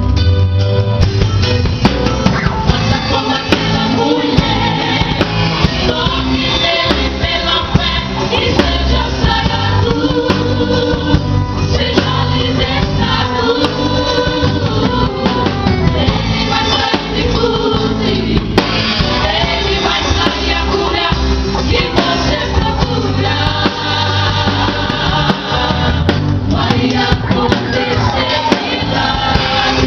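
Live gospel worship song: a group of voices singing over a band with drums and guitar, with a steady beat.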